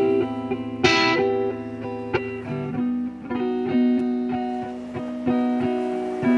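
Instrumental music: guitar playing a sequence of sustained, picked notes, with a brighter strum about a second in.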